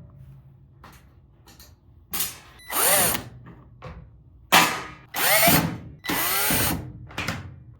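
Power drill/driver run in about five short bursts, its whine rising and falling with each trigger pull, as the washing machine is taken apart.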